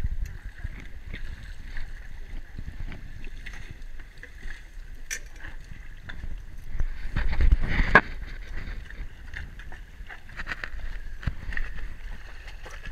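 Wind buffeting the microphone over sea water sloshing at a dive boat's stern platform. About seven to eight seconds in a louder rush swells into a sharp splash as a scuba diver, tank on back, steps off into the sea.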